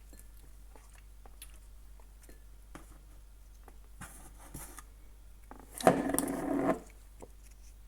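Faint scattered clicks and taps of keyboard parts being handled, then, about six seconds in, a sharp click followed by under a second of louder rubbing and clattering.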